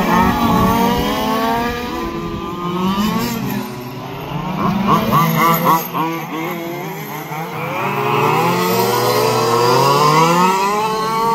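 Several 1/5-scale RC racing trucks' small two-stroke petrol engines running at once, their pitch rising and falling as they accelerate and ease off through the corners.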